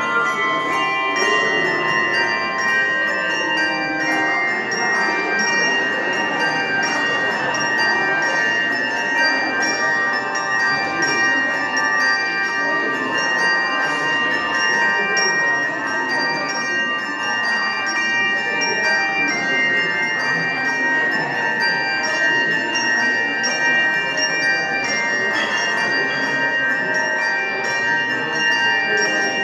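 Handbell choir playing a piece: many tuned handbells rung one after another, their tones ringing on and overlapping.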